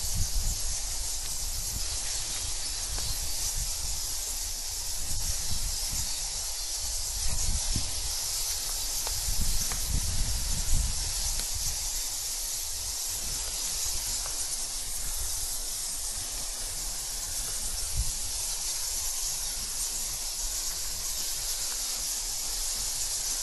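A steady high hiss, with wind rumbling on the microphone and a few soft bumps from the camera being carried over rocks.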